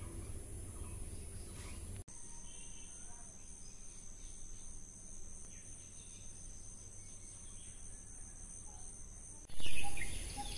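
Steady, high-pitched chirring of insects, likely crickets, with a faint regular pulse, over outdoor ambience. A short loud burst of sound comes near the end.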